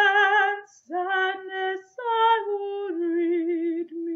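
A woman singing solo without accompaniment: short phrases of held notes with vibrato, the melody stepping down to a lower note held about three seconds in.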